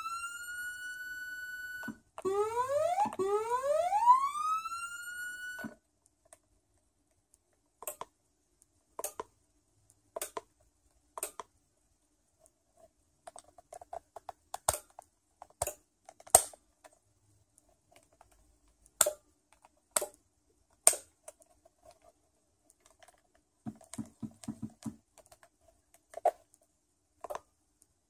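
Electronic siren worked from a Carson SC-550 Stealth controller: a tone sweeps up in pitch and holds, stops, and then rises twice more before cutting off about six seconds in. After that the controller's buttons click about a dozen times, roughly a second apart, with a brief low buzz near the end.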